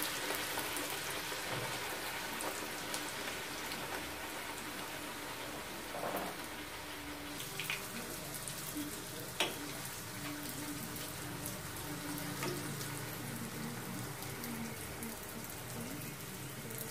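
Poori deep-frying in hot oil in a kadai: a steady, dense sizzle, with a few brief knocks over it in the middle.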